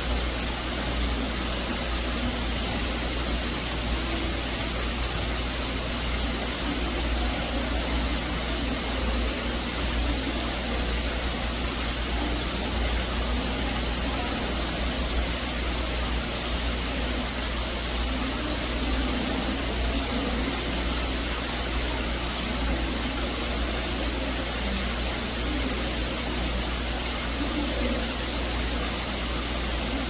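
Water pouring steadily from an artificial rock waterfall into a fish tank: an even, unbroken rush of falling and splashing water, with a low rumble underneath.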